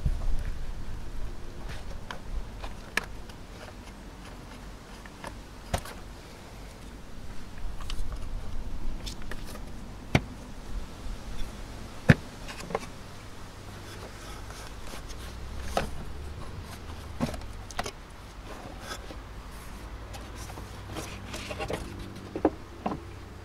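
Plastic clicks, snaps and rustling from handling a 2018 Toyota Yaris's air-intake hose and air filter housing as its clips are undone and the filter is lifted out. The clicks come at irregular intervals, the sharpest one about halfway through, with a cluster of small clicks near the end, over a low rumble of handling noise.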